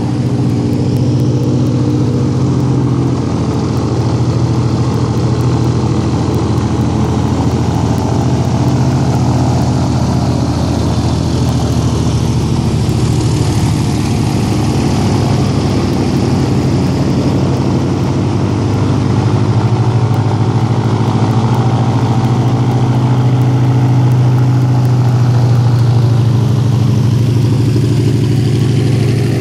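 A loud engine droning steadily at a low pitch, swelling a little louder past the middle.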